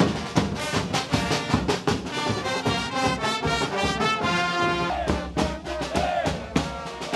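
Street brass band (xaranga) playing, with brass notes over regular drum beats. About five seconds in the brass stops and crowd voices take over, with the drumming going on underneath.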